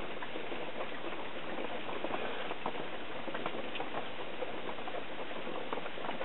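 Steady hiss with many faint, scattered clicks and crackles throughout.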